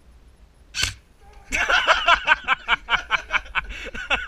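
A toy gun fires a single sharp shot about a second in. Then comes loud, rapid, rhythmic male laughter that goes on to the end.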